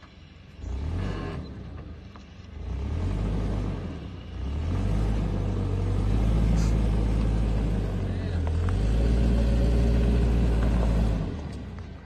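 Toyota Land Cruiser Prado SUV's engine pulling it over a steep gravel track, its revs rising in surges about a second in, again around three seconds, and in a longer stretch from about five seconds, then dropping away near the end.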